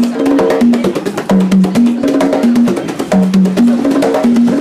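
Conga drums played by hand in a steady, repeating groove: sharp slaps between ringing open tones at several different pitches.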